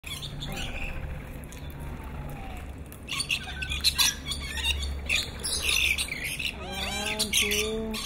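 A crowd of lorikeets and lories squawking with harsh, shrill calls. The calls thicken and grow louder from about three seconds in.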